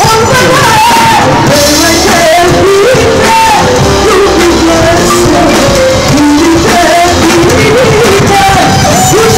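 Rock music with a singing voice, played very loud and recorded through a phone camera's microphone, which is overloaded so the sound comes out harsh and distorted.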